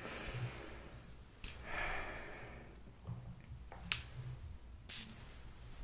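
Hair perfume spritzed from a spray bottle: two hissing sprays, one right at the start and a second about a second and a half in, followed by a couple of sharp light clicks.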